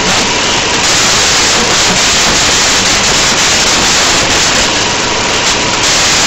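Loud, steady hiss like static or white noise, even from low to high with a faint steady tone beneath it, drowning out the room.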